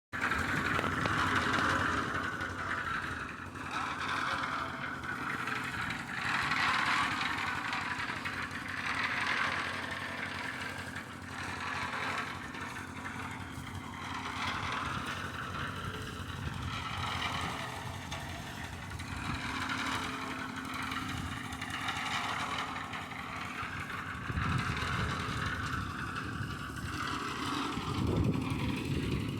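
An engine running steadily, with a coarse higher-pitched noise that swells and fades every few seconds.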